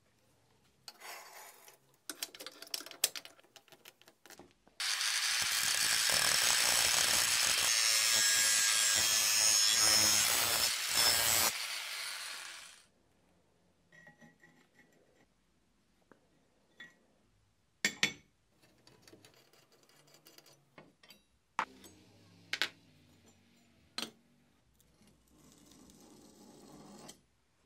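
A power tool running on metal for about eight seconds, starting suddenly about five seconds in and fading out before it stops. Scattered knocks and clinks of metal parts being handled come before and after.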